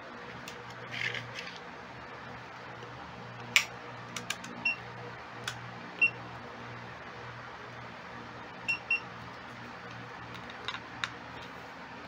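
Hioki IR4057 insulation tester beeping as its test button is pressed: short high beeps, one about five seconds in, another at six seconds and a quick double beep near nine seconds, among sharp clicks from test clips and buttons being handled, over a steady low hum. The tester is running a 250 V DC insulation resistance test on a washing-machine motor winding.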